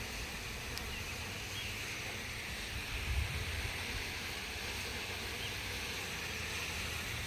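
Italian honeybees buzzing as they fly around a freshly installed hive, over a steady low rumble of wind on the microphone.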